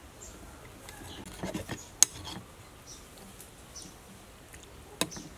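Metal spoon clinking against a ceramic soup bowl while soup is eaten: a few light clinks and scrapes, the sharpest about two seconds in and another near the end.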